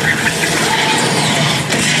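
Movie explosion sound effects: a loud, steady, dense roar, with debris and glass breaking setting in just after.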